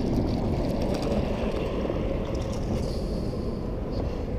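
Steady wind rumble buffeting the microphone.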